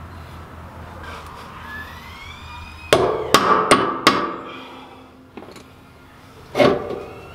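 Hammer blows on a steel leaf-spring hanger bolt: four quick ringing metallic strikes about three seconds in, then a single strike near the end, knocking the bolt out of the spring hanger.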